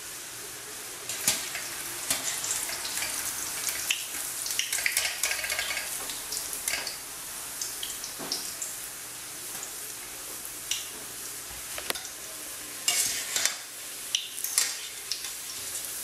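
Bolinhos de chuva (dough balls) frying in hot oil in a small stainless saucepan: a steady sizzle with crackling. A wire mesh strainer clinks against the pan a few times as the balls are scooped out.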